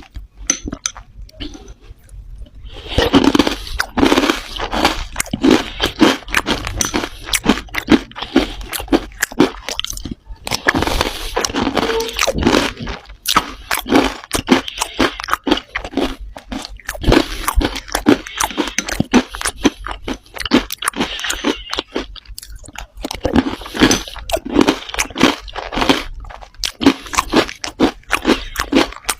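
Dry red clay crunching as it is bitten and chewed: a dense run of crisp cracking crunches. The crunches are sparse and quieter for the first couple of seconds, then come thick and steady, with brief pauses about ten and twenty-two seconds in.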